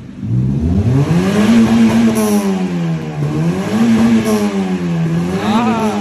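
Honda Civic 'Reborn' (8th-generation) engine revved through a newly fitted aftermarket exhaust. The revs climb from about half a second in, then rise and fall back three times.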